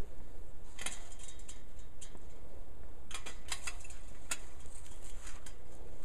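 A scattering of sharp, light clicks and ticks, several in quick succession about three seconds in, over a low steady rumble.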